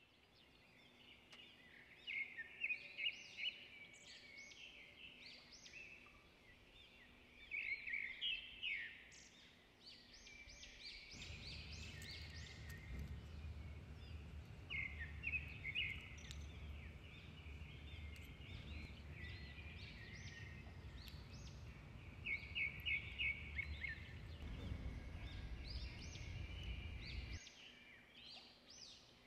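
Small birds chirping in quick repeated runs of calls, over a low steady rumble of background noise that starts about eleven seconds in and stops near the end.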